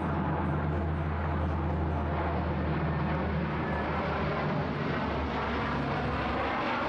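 Lockheed C-130 Hercules four-engine turboprop passing low overhead on approach to land: a loud, steady propeller and engine drone with a deep low hum.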